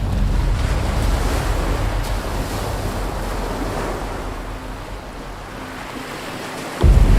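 Background music of the cinematic kind: a deep booming hit whose low drone and noisy wash fade slowly, then a second hit near the end.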